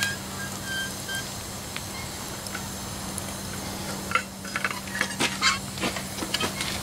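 Molten brass being poured into a sand mould, with a steady low hum throughout. From about four seconds in, a run of sharp crackles and ticks.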